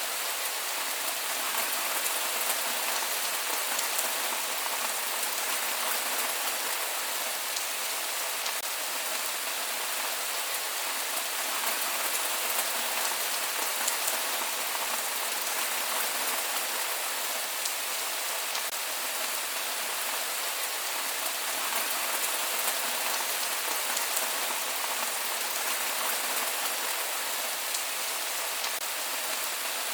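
Steady rain falling and pattering on surfaces, an even hiss with many fine drop ticks and no thunder.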